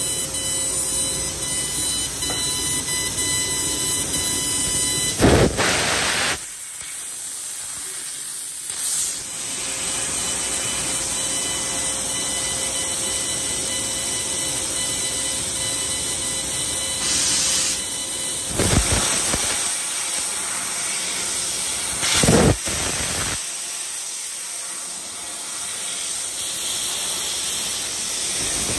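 3 kW laser cutter cutting 3/16-inch hot-rolled steel with compressed-air assist: a steady hiss of air jetting from the cutting head. A few short, louder blasts break in, about five seconds in and twice more later.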